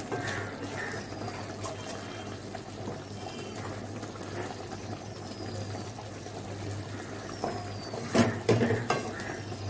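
Creamy gravy simmering in a metal kadai, a steady bubbling. About eight seconds in, a spatula stirs and knocks against the pan a few times.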